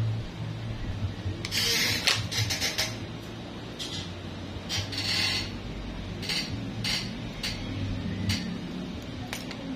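Steel nail nipper snipping and clicking at the edge of an ingrown big toenail, a series of short, sharp, irregularly spaced snips, over a steady low hum.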